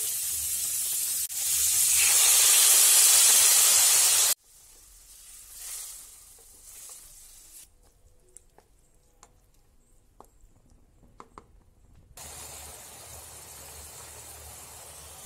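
Chicken pieces sizzling in oil in a frying pan as they are stirred, loud for the first four seconds. The sound then cuts off abruptly to a much quieter stretch with a few light clicks, and the sizzling resumes more softly about twelve seconds in.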